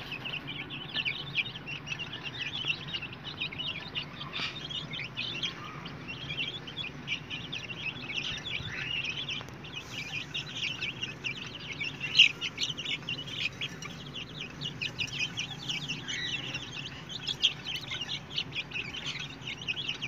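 A flock of young chicks, about two weeks old, peeping continuously, many short high calls overlapping, as they crowd round a dish pecking at grain.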